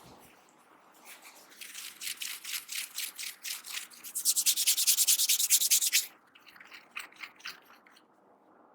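Hands rubbing briskly in a massage: scratchy strokes a few per second, then a faster, louder run of about seven a second that stops suddenly about six seconds in, with a few weaker strokes after.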